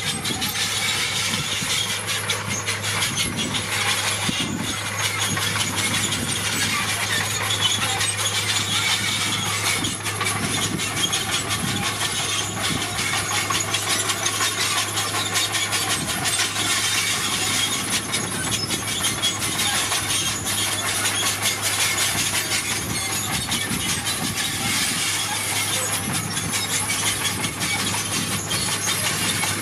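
Komatsu D41PX crawler bulldozer running steadily, its diesel engine holding one note under a dense, continuous metallic clatter from its steel tracks.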